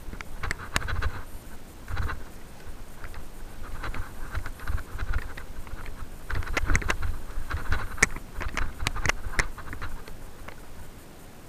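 Mountain bike clattering and rattling down a rough dirt singletrack: irregular sharp knocks from bumps over a low rumble of tyres and wind. It quietens near the end as the bike slows.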